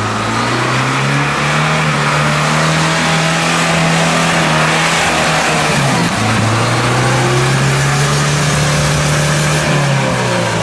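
UAZ-469 engine running under load as the truck crawls through thick undergrowth; the engine note holds steady, dips briefly about six seconds in, picks up again and falls away near the end.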